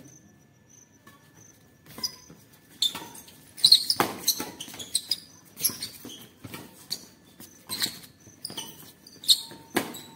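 A badminton doubles rally: rackets strike the shuttlecock in a run of sharp cracks, starting about two seconds in and coming roughly every half second to a second, with players' shoes scuffing and pattering on the concrete court between the strokes.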